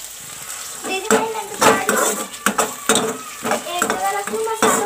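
Metal ladle scraping and knocking against a kadhai about twice a second as vegetables are stirred and sizzle in hot oil.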